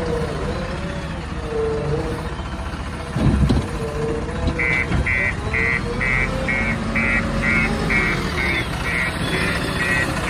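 JCB 3DX backhoe loader's diesel engine running, with a tone that wavers up and down and a heavy thud about three seconds in. From about four and a half seconds in, a reversing alarm beeps steadily at about two beeps a second.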